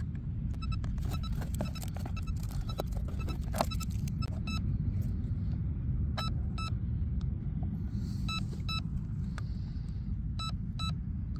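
Steady low rumble, with clicks and knocks over the first few seconds as the wooden hatch of a small RC boat is handled and lifted off. Short high electronic beeps come in quick twos and threes from about four and a half seconds on.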